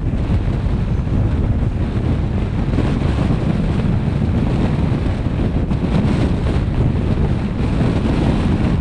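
Steady wind noise buffeting the microphone of a GoPro mounted on a moving car, a dense low rumble with no distinct events.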